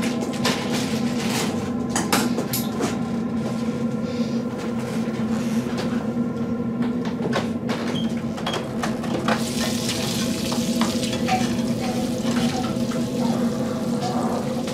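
Light clinks and knocks of small household objects being handled, over a steady droning tone.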